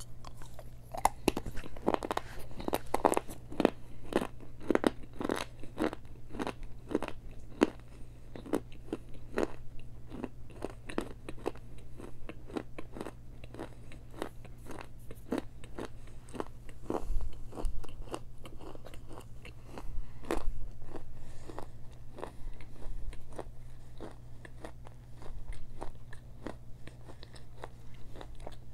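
Close-up ASMR biting and chewing of hard, dry Mexican clay pot treats: sharp, brittle crunches, rapid and loudest in the first few seconds, then a steady run of chewing crunches about one to two a second.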